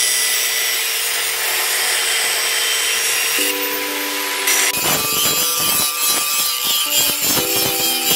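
Angle grinder with a sanding disc grinding a steel blade cut from a tractor disc: a steady motor whine with abrasive hiss, turning rougher and choppier with uneven scraping strokes from about five seconds in as the blade is worked against the disc.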